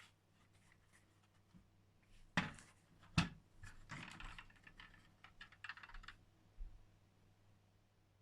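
Handling noise: a scattered run of small clicks with two sharp knocks about two and three seconds in, then a stretch of scraping and rustling. No alarm tone sounds.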